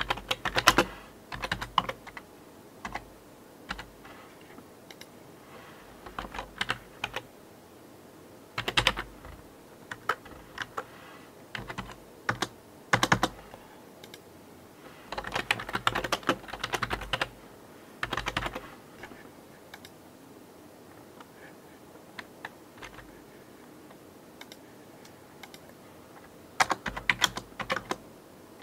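Typing on a computer keyboard: short bursts of quick keystrokes separated by pauses, with a longer pause in the second half.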